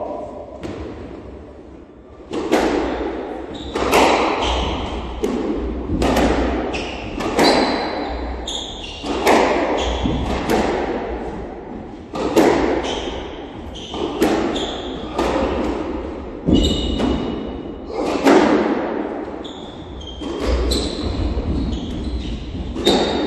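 Squash rally: the ball knocked back and forth, racket hits and the ball smacking the walls about every second or so, each knock echoing around the court, with short high squeaks of shoes on the wooden floor.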